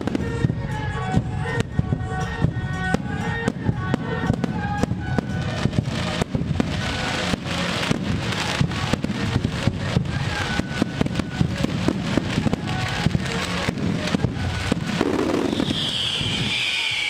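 Aerial fireworks and firecrackers going off in rapid, continuous bangs and pops over music, whose melody fades out after the first few seconds. Near the end a high whistle falls in pitch.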